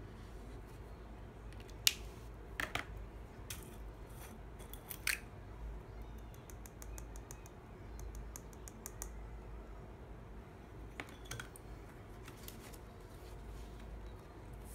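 Light clicks and taps from handling small craft tools: a few sharp clicks, then a run of quick light ticks, about four a second, as gold embossing powder is tapped out of a small plastic jar onto paper, then a few more clicks.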